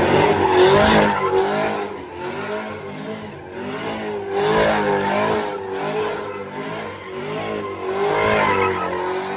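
Chevrolet Camaro doing donuts: the engine revs up and down about once a second as the throttle is worked, over the hiss of the rear tires spinning on the pavement.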